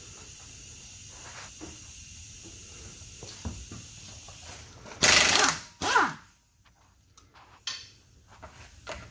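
Air impact wrench with a 19 mm socket rattling a wheel's lug nut loose: a loud burst about five seconds in, then a second short burst, each winding down with a falling whine. Low steady shop hiss before the bursts.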